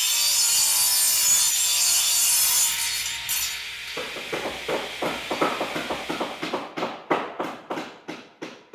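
Logo sound effect of a saw cutting: a harsh, rasping grinding cut for about four seconds, then a run of sharp ticks a fraction of a second apart that grow fainter.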